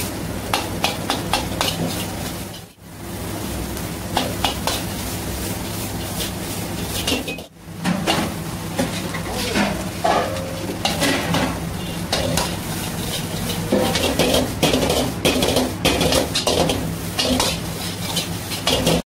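Metal ladle scraping and clanging rapidly against a large iron wok as fried rice is tossed and stir-fried, over a steady sizzle. The sound breaks off briefly twice.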